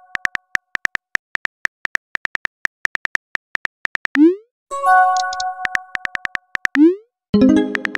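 Synthesized chat-app sound effects: quick, even keyboard typing clicks at about five a second, then a short rising swoosh and a ringing chime as a message is sent, about four seconds in. More typing clicks follow, another rising swoosh near seven seconds, and a lower, fuller chime near the end.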